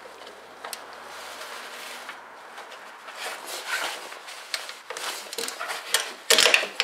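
A socket wrench clicking and knocking against metal as it is fitted to the 10 mm bolt of a snowmobile's idler wheel support block. Scattered clicks start about three seconds in, and a cluster of sharper knocks comes near the end.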